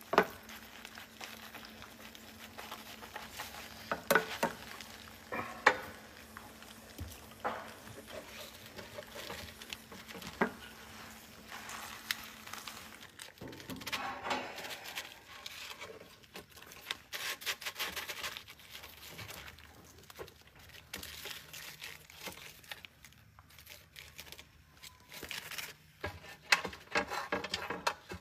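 Aluminium foil crinkling and rustling as gloved hands handle and flatten it on a tray, in bouts, busiest around the middle and near the end, with scattered sharp knocks and clicks. A faint steady hum runs under the first half.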